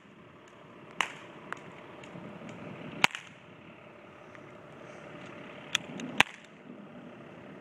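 Cap guns firing: about five sharp snaps at irregular intervals, the loudest about three and six seconds in, over a steady hiss of rain.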